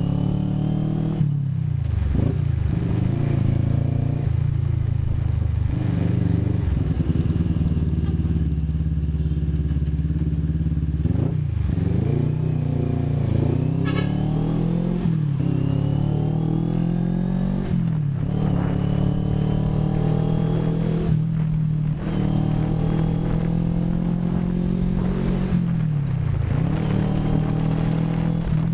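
CFMoto NK400 motorcycle's parallel-twin engine running under way. Its pitch climbs and falls over and over, with sharp dips every few seconds as the rider rolls on and off the throttle.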